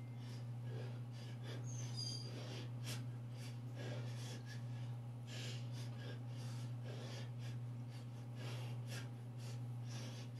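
A man breathing in quick repeated breaths while working out with a dumbbell, over a steady low hum.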